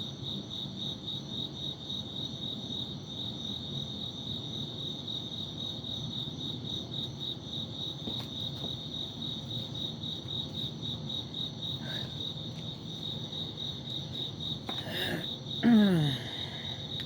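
Crickets chirping steadily in the background, a fast even high-pitched pulsing that does not let up.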